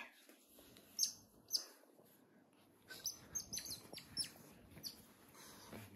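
Otters giving short, high-pitched chirps in quick clusters, each chirp falling in pitch, over soft rustling of bedding.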